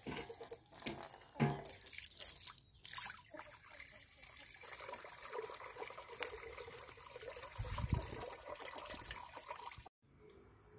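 A stream of water pouring and splashing into an old cast-iron cauldron, rinsing loosened rust out of it. It cuts off abruptly near the end.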